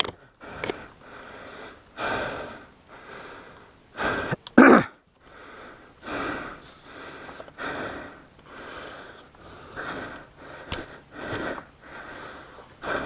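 A person breathing hard and fast, quick loud breaths in and out following one another about every half second, with one louder breath about four and a half seconds in: the panting of a rider out of breath from exertion on the trail.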